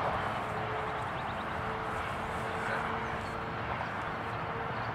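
Steady outdoor background noise with a faint, steady drone underneath, and a few faint high ticks about a second in.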